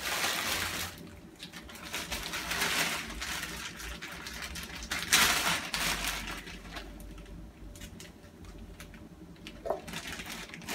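Plastic bag of mango pieces rustling and crinkling as it is opened and handled, in several bouts of a second or two.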